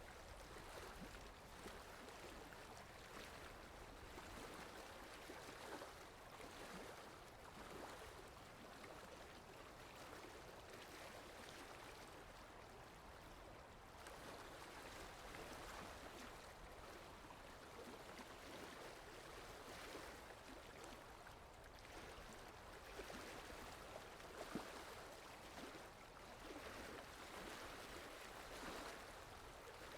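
Faint lake water lapping and sloshing, a steady wash with gentle swells.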